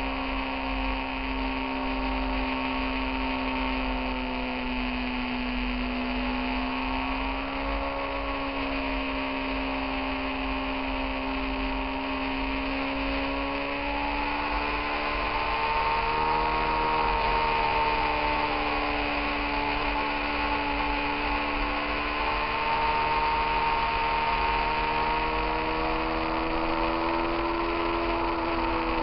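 Motorcycle engine running at road speed, its note rising and falling gently with the throttle through a string of curves. A steady hiss of wind and road noise lies over it, with a low wind rumble on the microphone.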